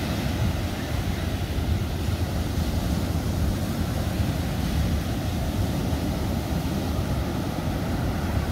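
Wind buffeting the microphone in a steady low rumble, over the wash of ocean surf.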